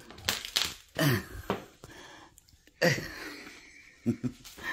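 A person clearing their throat twice, short falling-pitch sounds about a second in and again near three seconds.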